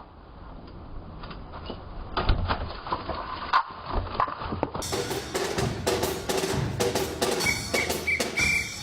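Drum-like knocking and clattering with music. About five seconds in, it changes abruptly to sharper, brighter clicks with a few short high tones.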